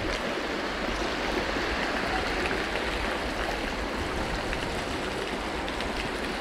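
Steady, even rushing noise, water-like, with no distinct events.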